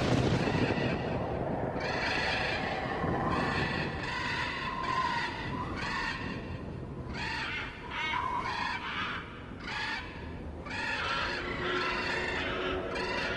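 Harsh animal calls repeated about half a dozen times with short gaps, over a steady low rumble.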